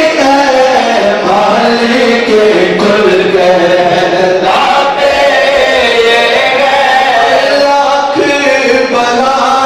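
A crowd of men chanting together in unison in devotional chanting, in long held notes that slowly rise and fall.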